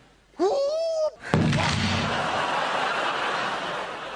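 A man's short drawn-out vocal noise, rising and then held, followed by a sudden switch to a loud, steady din from a live theatre audience.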